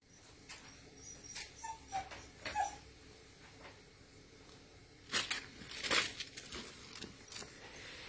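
3D printer's stepper motors whining in short pitched chirps as the print head moves, with two sharp clicks about five and six seconds in.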